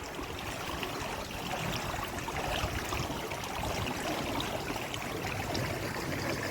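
Swimming-pool water splashing and trickling steadily as a person swims.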